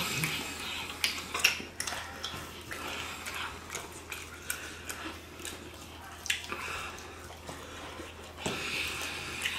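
Wet eating noises: chewing, lip smacking and fingers pulling apart sauce-covered chicken wings, heard as an irregular run of sticky clicks and crackles, loudest about a second and a half in.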